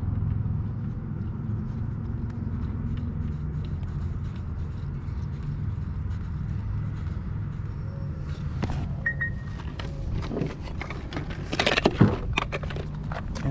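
Small metallic clicks and clinks of a spark plug and tool being handled at an outboard's cylinder head, growing busier in the second half with a cluster of louder knocks and clatter near the end. Under it a steady low engine-like rumble runs throughout.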